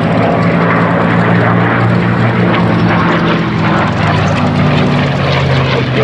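P-51D Mustang's Packard-built Merlin V12 engine flying past, a loud steady drone that drops slightly in pitch about four seconds in.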